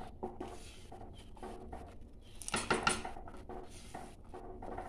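A wooden spatula stirring rice in boiling water inside an aluminium pressure cooker, giving uneven scrapes and light knocks against the pot, with the water bubbling. The stirring grows busier about halfway through.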